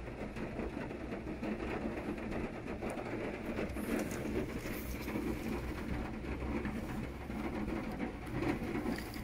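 Heavy rain and floodwater making a steady rushing, pattering noise.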